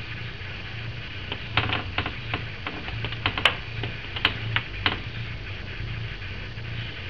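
Mother cat purring steadily in a low, rhythmic pulse while lying with her newborn kittens, with a scatter of light clicks from about one to five seconds in.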